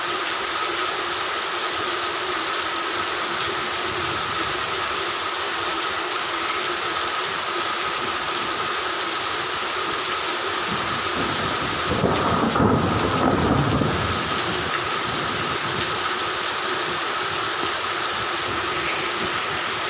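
Steady rain, with a rumble of thunder that swells about halfway through and fades after a few seconds.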